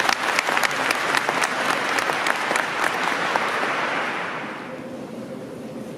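A large crowd applauding: a dense, steady clapping that dies away about four to five seconds in.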